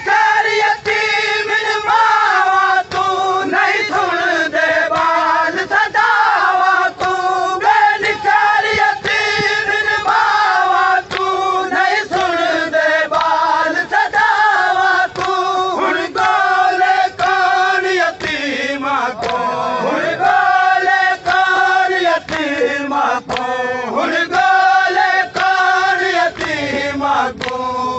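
Men chanting a noha, a Shia mourning lament, in a continuous melodic line. It is punctuated by a steady beat of sharp slaps, about two a second, typical of matam chest-beating that keeps time with a noha.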